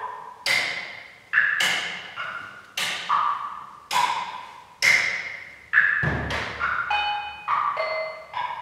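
A series of sharp percussive strikes, roughly one a second, each ringing at a different pitch and dying away. About six seconds in a deep thud joins, and near the end the strikes come closer together with clearer ringing tones.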